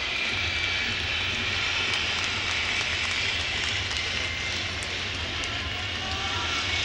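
Steady crowd noise in a baseball stadium: an even, continuous wash of cheering voices with no single shout or clap standing out.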